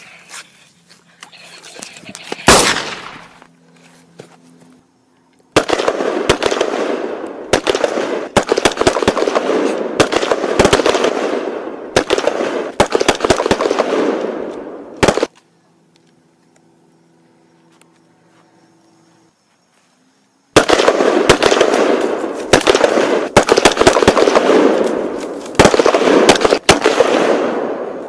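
Rapid automatic-gunfire sound effect, a dense run of cracks in two long bursts of about ten and six seconds, with a single loud crack a couple of seconds in. Between the bursts it cuts off abruptly to a faint low hum.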